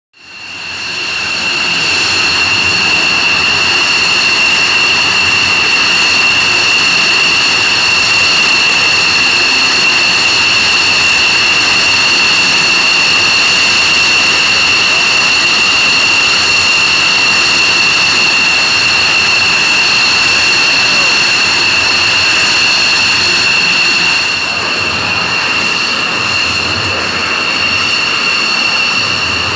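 Jet engines running with a loud, steady high-pitched whine over a rushing noise. The whine fades in over the first second and turns slightly duller and quieter about 24 seconds in.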